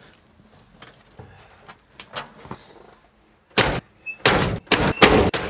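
Soft clicks and knocks as someone climbs into an old Jeep, then, about three and a half seconds in, a run of four loud, heavy bangs in under two seconds: the Jeep's metal door slamming and the body being banged.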